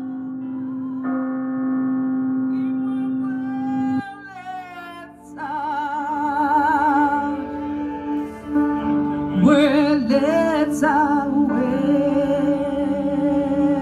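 A woman singing with a wide vibrato through a microphone and loudspeakers, over a sustained held keyboard chord. The held chord sounds alone at first; her voice comes in about three seconds in and grows fuller from about five seconds.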